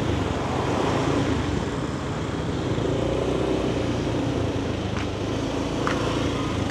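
Steady road noise of riding a motor scooter through town traffic: the engine and wind rumbling, with other vehicles running alongside. Two short sharp clicks sound about five and six seconds in.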